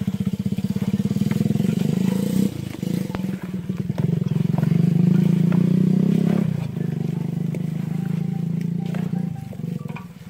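A small engine running close by, with rapid even firing pulses. It grows louder toward the middle and drops back about six and a half seconds in.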